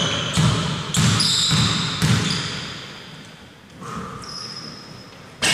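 Basketball bounced on a hardwood court in a large hall: low thumps about twice a second that die away after the first two seconds or so. Typical of a player dribbling at the line before a free throw.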